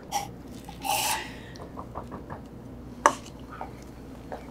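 Quiet room tone with a few light handling noises: a soft click at the start, a brief rustle about a second in, and a sharper single click or knock about three seconds in.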